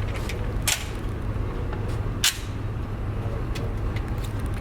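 Pistol shots at a shooting range: two sharp reports about a second and a half apart, with several fainter shots in between, over a steady low hum.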